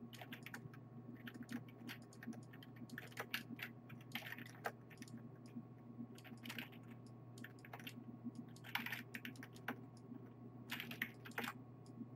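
Faint, irregular clicks and taps of a computer keyboard and mouse, some in quick clusters, over a steady low hum.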